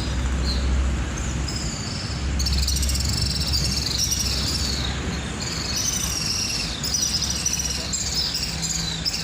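Many swiftlets (sriti) twittering together in a dense flurry of short, high chirps, over a steady low rumble.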